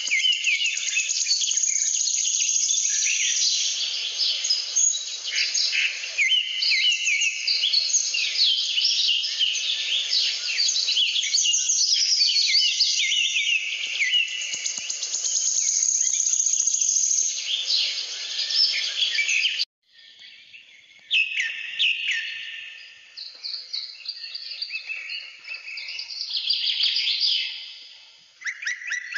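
Many birds chirping and singing at once, a dense chorus of quick, high calls. It cuts out abruptly about two-thirds of the way through, then resumes more sparsely.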